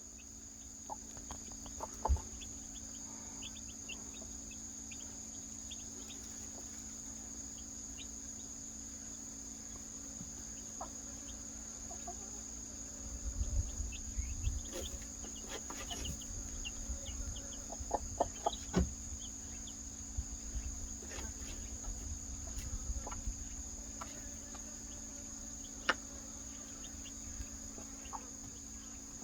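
A hen and her newly hatched chicks: scattered short clucks and peeps. Behind them runs a steady high drone like insects, and there is a low rumble with a few sharp knocks partway through.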